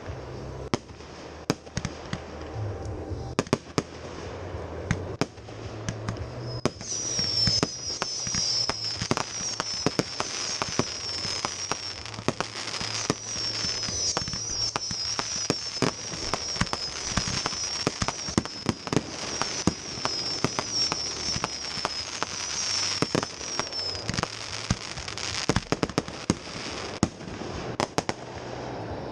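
Fireworks display: a rapid run of bangs and crackling bursts from aerial shells. A high, warbling whistle runs through the middle stretch.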